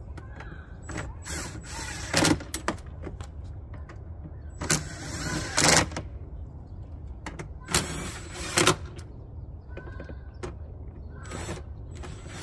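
Cordless power driver with a socket on an extension run in short bursts to snug down the screws of a plastic air-filter cover: about four runs, each roughly a second long and ending louder.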